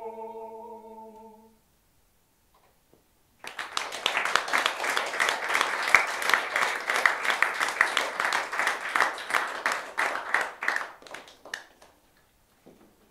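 A soprano and a male singer hold the final note of a duet, which fades away about a second and a half in. After a short silence an audience applauds for about seven seconds, the clapping thinning to a few scattered claps near the end.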